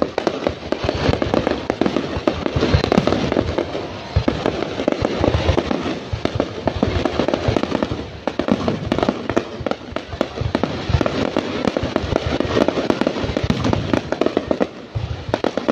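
Fireworks display: a dense, unbroken barrage of shells bursting in many rapid bangs and crackles.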